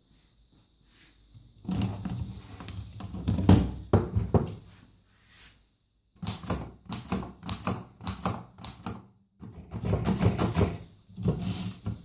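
Corona folding typewriter being typed on: rapid clacking keystrokes in three runs of a few seconds each, with short pauses between.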